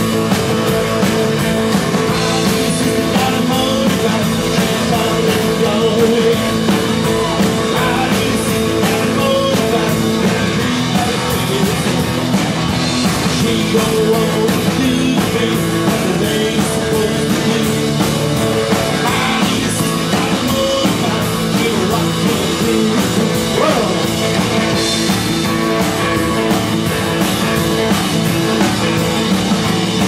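Live rockabilly band playing: electric guitar, acoustic rhythm guitar, upright bass and drum kit, with a male lead singer.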